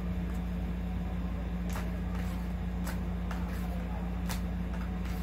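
Several sharp plastic clicks and taps as cats bat the balls around a plastic cat track-tower toy, over a steady low hum.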